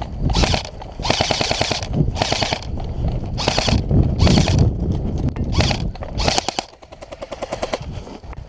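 Airsoft electric guns firing on full auto in several short bursts, a fast clatter of shots. The firing is loudest in the first six or so seconds and carries on more faintly near the end.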